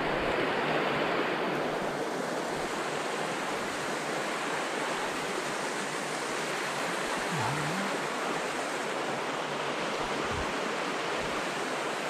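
Creek water rushing and splashing over rocks, a steady even wash.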